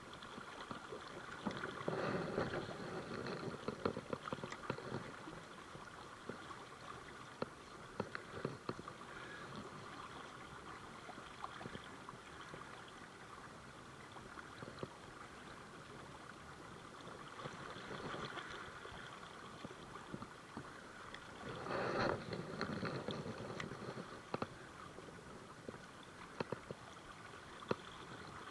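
Flowing river water gurgling and rushing, swelling briefly about two seconds in and again about twenty-two seconds in, with a few faint clicks.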